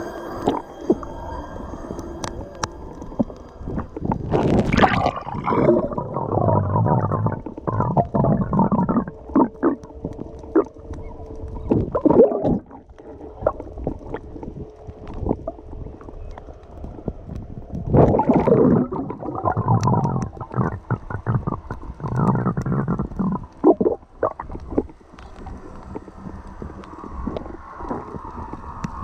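Muffled underwater sound picked up by a submerged camera: water gurgling and bubbling in irregular surges every few seconds, with scattered sharp clicks and knocks.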